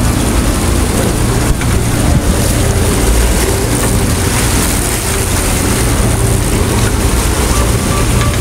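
A boat's engine running with a steady low hum, mixed with water noise and wind on the microphone.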